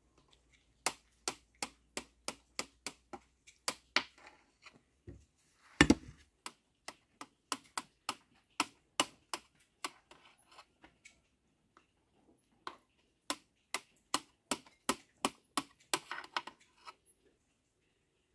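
Kitchen knife tapping against the bottom of a metal baking tray while a baked cauliflower dish is cut into squares: sharp clicks in runs of several, about two or three a second, with one heavier thud about six seconds in.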